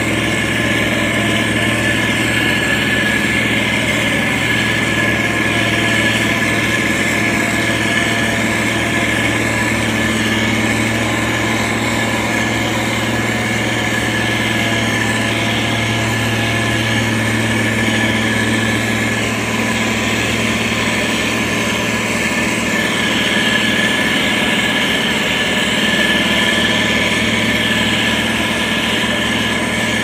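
Diesel engine of heavy road-building machinery running steadily: an even low hum with a steady high whine over it.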